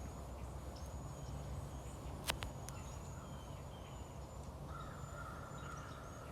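Faint birds chirping outdoors, many short high calls over a low steady hum, with one sharp click a little past two seconds in and a steady whistling tone near the end.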